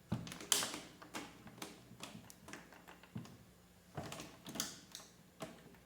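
Irregular light clicks and taps from hands working a snare drum's tension rods and hoop as the rods are tightened by finger, one opposite rod after another, to seat the new head.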